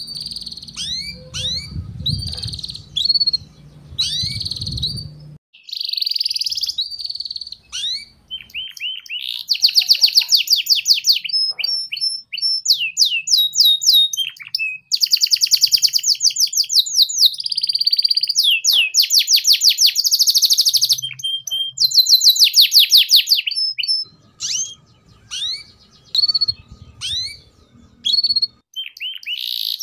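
Domestic canary singing. Quick up-sweeping chirps give way, about ten seconds in, to long rolls of fast repeated notes, several about two seconds long: the chattering 'ngeriwik' trill.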